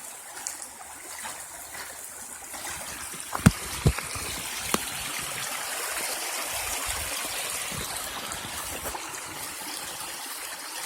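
Shallow stream water trickling and flowing steadily, with a few short sharp knocks about three and a half to five seconds in.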